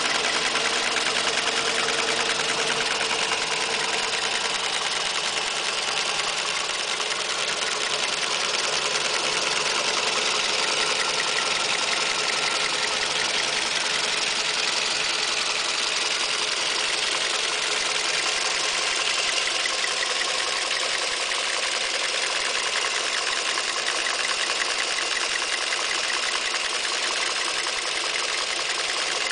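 Toyota 2NZ-FE 1.3-litre four-cylinder petrol engine idling warm, with a fast, even ticking from the top of the engine, which a Toyota mechanic judged normal.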